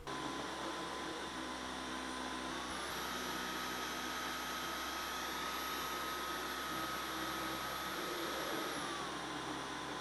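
Dyson V11 cordless stick vacuum running with its High Torque cleaner head: a steady motor whine over the rush of suction. About two and a half seconds in the whine steps up in pitch as the head moves onto carpet and the vacuum automatically raises its suction, and near the end it steps back down as the head returns to hard floor.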